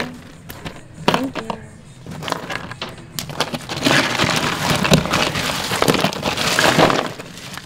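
Ice and bay scallop shells in a cooler crunching and clattering as a hand digs through them: a few scattered clicks at first, then a denser, louder stretch of crunching from about three seconds in that eases off near the end.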